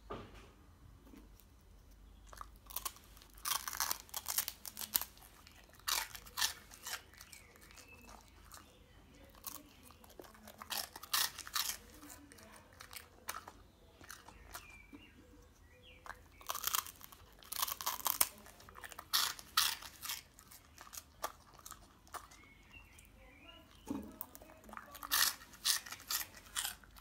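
A Samoyed biting and chewing crispy puffed corn snacks. The crunching comes in several bouts of quick crackling crunches, with short pauses between.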